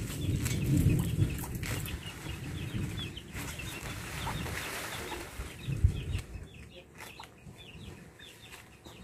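Chickens clucking, with many short, repeated calls throughout. Low rumbling handling noise fills the first part, and there is a single thump about six seconds in.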